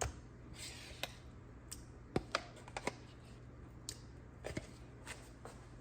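Scattered light clicks and taps of a spoon against a plastic tub and mixing bowl as ricotta cheese is scooped out, about eight knocks at uneven intervals over a faint steady hum.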